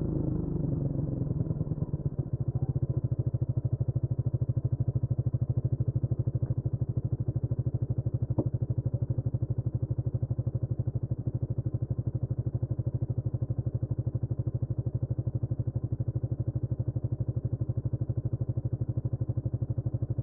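Honda CMX250 Rebel's single-cylinder engine idling steadily, an even run of exhaust pulses with no revving. A single faint click about eight seconds in.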